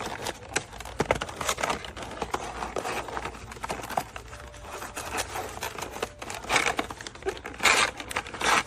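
Handling noise: crinkling and rustling with a string of irregular clicks and knocks, the loudest rustles near the end.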